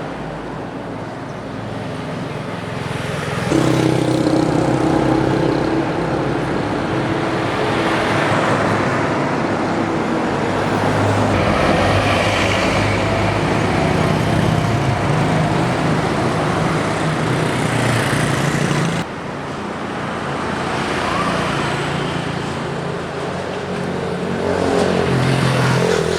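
Street traffic: motor vehicle engines running and passing close by. The sound breaks off abruptly about two-thirds of the way through and goes on with another stretch of traffic.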